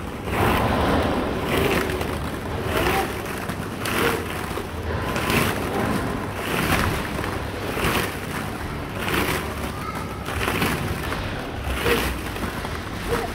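Plastic ball-pit balls rustling and clattering against each other as they are pushed and shifted, in even surges about every 1.3 seconds.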